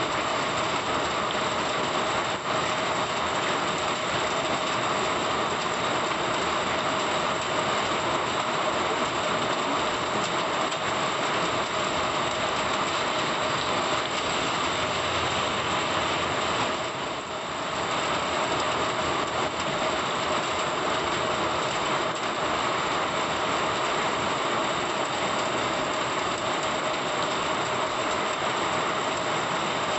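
Heavy rain pouring steadily onto a waterlogged road, a dense, even hiss that eases briefly a little past halfway.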